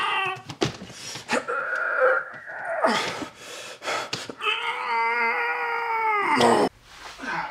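A man straining and groaning as he tugs at a stuck window sash, with knocks and rattles from the window. About halfway through comes a long, high, strained groan that slides down and breaks off near the end.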